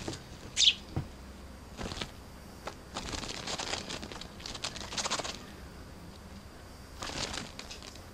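A sparrow wriggling and flapping on a pair of cloth shorts, the fabric rustling and crinkling in several short bursts. A brief high squeak sounds near the start, and a soft thump about a second in.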